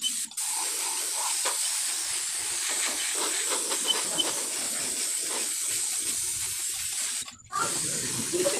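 Paint spray gun hissing steadily as it sprays paint through a paper stencil, with a brief stop about seven seconds in before it starts again.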